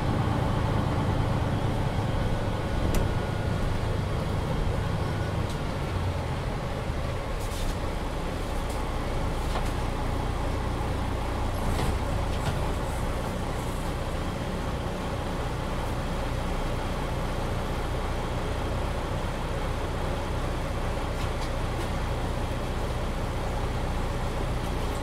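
MAN NG 313 articulated city bus heard from inside while driving: its diesel engine and running gear keep up a steady low drone with road noise, and a few faint clicks and rattles come through.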